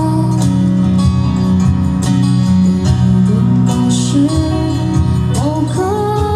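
Folk song played live with strummed acoustic guitar over a steady low accompaniment. A sliding melodic line comes in about five seconds in.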